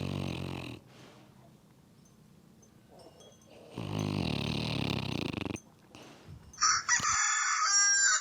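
Two long, low-pitched animal calls, a few seconds apart, followed near the end by a brief, loud, bright sound of another kind.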